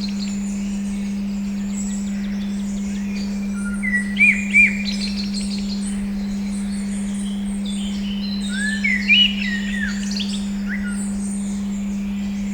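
A steady 200 Hz pure tone with recorded birdsong laid over it. Songbirds sing short phrases of whistled glides and quick trills, loudest about four seconds in and again near nine seconds.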